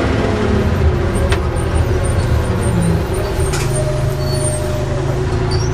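Volvo Olympian double-decker bus with a Cummins engine and ZF gearbox running on the road, heard from inside the lower deck. The engine note shifts about three seconds in and then holds a steady hum, with a couple of sharp knocks from the body.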